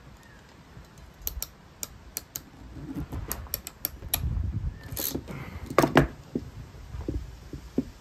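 Hand crimping tool squeezing a metal Anderson connector contact onto a cable: a run of light metallic clicks, then two louder clicks, the loudest about six seconds in.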